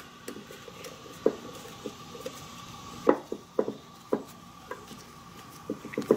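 Allen (hex) key turning screws into the housing of a Nissan Maxima EGR valve: a series of irregular light metal clicks as the key is worked and reseated in the screw heads, the sharpest about three seconds in and just before the end.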